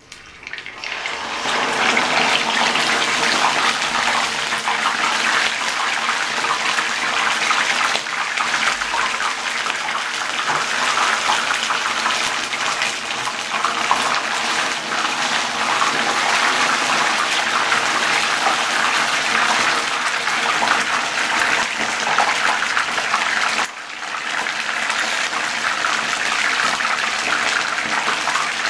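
Whole fish deep-frying in hot oil in a frying pan: a loud, steady sizzle and crackle that swells up within the first couple of seconds as the fish goes into the oil, dipping briefly near the end.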